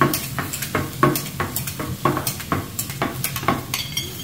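Metal spatula tapping a stainless-steel seasoning shaker in a quick run of ringing clinks, about three to four a second, as it seasons vegetables sizzling on a hot teppanyaki griddle.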